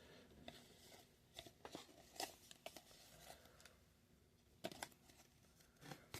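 Quiet, scattered flicks and rustles of trading cards being handled and flipped one by one, card stock sliding and snapping against the next card.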